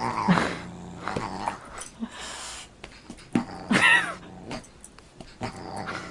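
Dog growling and yipping in several short bouts while play-fighting with a cat, the loudest call about four seconds in.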